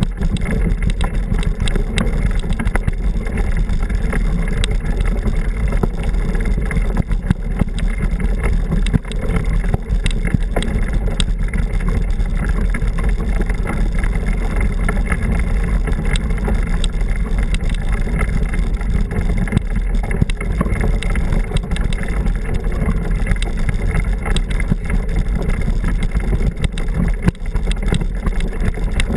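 A mountain bike rolling over a gravel trail, recorded on a camera riding with it: a steady, loud rumble of wind and riding noise on the microphone, with frequent small clicks and rattles from the tyres on stones and the bike shaking.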